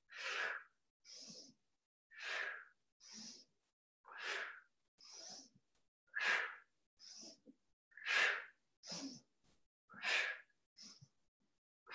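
A woman breathing hard and rhythmically close to the microphone while doing push-ups: a strong breath followed by a weaker one, repeating about every two seconds, six times.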